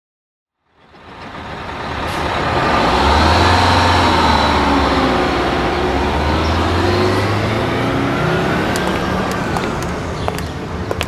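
Street-traffic sound effect fading in over about two seconds: a heavy vehicle's deep engine rumble with a whine that bends up and down. Near the end come sharp clicks.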